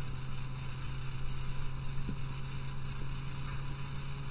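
A steady low electrical hum with a faint hiss, like mains hum in the recording.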